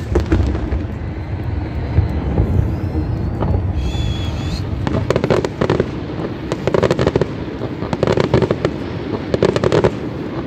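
Fireworks display: repeated bangs of bursting shells over a low, steady rumble, with a brief high whistle about four seconds in. In the second half come dense clusters of rapid crackling pops.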